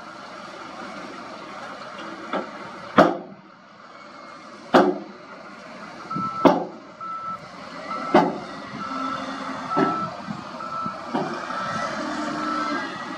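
SDLG wheel loader reversing with its diesel engine running; from about midway its backup alarm beeps roughly once a second. Sharp knocks come about every second and a half and are the loudest sounds.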